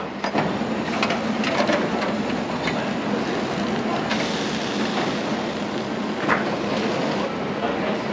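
Busy restaurant kitchen: a steady rushing background with scattered clinks and clatters of dishes and utensils. A louder hiss rises from about four seconds in and stops about seven seconds in.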